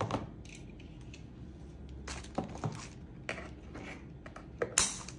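Quiet handling sounds: scattered light clicks and taps as an airsoft magazine and a pair of scissors are moved about inside a cardboard box, with a brief louder rustle near the end.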